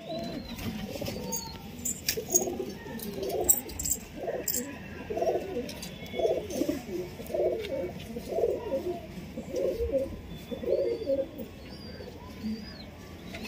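Domestic pigeons cooing, one coo following another about every second. A few sharp clicks come between two and five seconds in, and faint high chirps are heard here and there.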